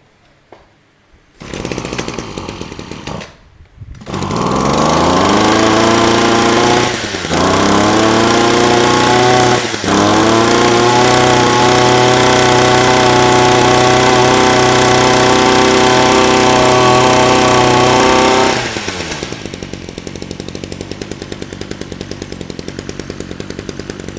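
Two-stroke 26cc engine of a Grip 265 brush cutter being pull-started. It catches about four seconds in and revs up to high speed, dips briefly twice, and holds steady. About eighteen seconds in it drops back to an even idle.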